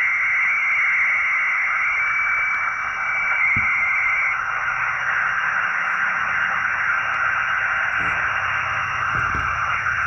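Xiegu X6100 HF transceiver's speaker playing steady band static, a narrow hiss. For the first four seconds or so a steady whistle-like tone sits on top of it, then it stops, leaving only the hiss. A low knock comes about three and a half seconds in.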